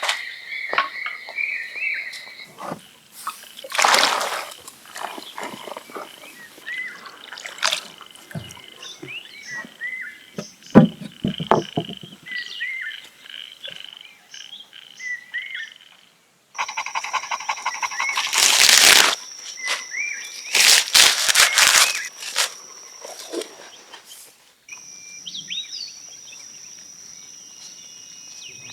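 Outdoor ambience with frogs croaking and a steady high insect drone. Several loud, short noisy bursts and knocks come over it, about four seconds in, around eleven seconds, and twice in the second half.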